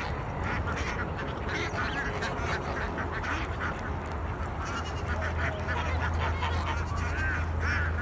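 A mixed flock of domestic ducks and geese feeding, with many overlapping quacks and honks and a few louder calls near the end, over a steady low hum.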